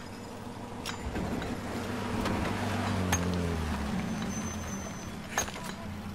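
A motor vehicle's engine running past. It swells in the middle and drops in pitch as it fades. A few sharp knocks of sledgehammers striking rock come through it.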